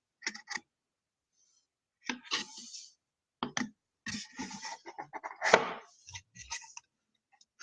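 Trading cards being handled and a card slid off the bottom of the stack: short rustles and scrapes of card stock in several separate bursts, the longest about four seconds in.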